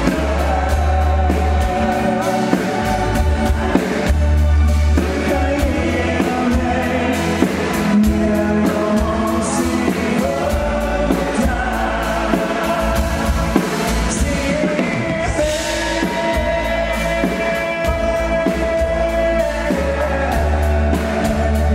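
A dansband playing live: a male lead singer singing over acoustic guitar, keyboards and drums, with a heavy bass underneath.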